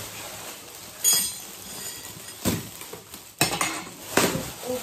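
Shiny metallic gift wrap crinkling and tearing as it is pulled off boxes by hand, in about four sharp rustles roughly a second apart.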